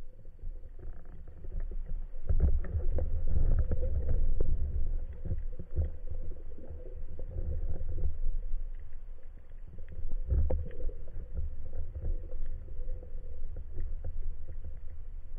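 Underwater noise picked up through a camera's waterproof housing on a speargun: a low, muffled rumble of water moving past, swelling about two seconds in and again around ten seconds, with scattered sharp clicks and a faint steady hum.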